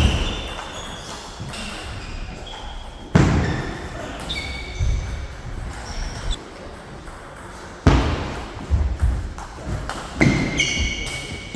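Table tennis play in a large reverberant hall: the celluloid ball clicking off bats and table, short high squeaks of shoes on the sports floor, and a few heavy thumps of footwork, the loudest about three and eight seconds in.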